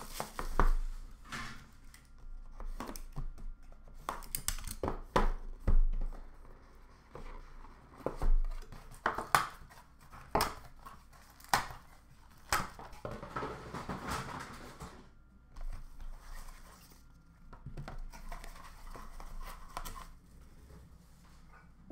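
Plastic shrink-wrap crinkling and tearing as it is pulled off a sealed box of hockey cards, then the cardboard box being opened and its inner card boxes lifted out, with many short taps and knocks.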